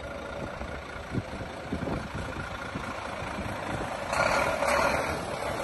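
Heavy military truck engine running as the truck drives slowly past, with a louder rushing noise for about a second near the end as it comes close.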